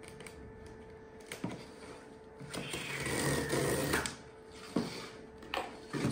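A small cardboard box is handled and opened by hand. It gives a few light knocks and clicks against the table, and near the middle there is a rasping scrape of cardboard lasting about a second and a half.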